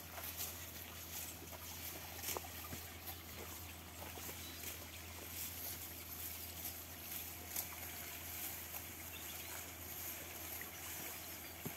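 Cattle grazing close by: scattered soft clicks and rustles of grass and reeds being torn and chewed, over a steady low rumble.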